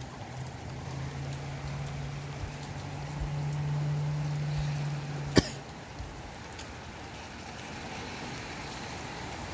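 Wind and rain with a steady hiss. Under it a low steady hum grows louder, then stops about five seconds in with a single sharp knock.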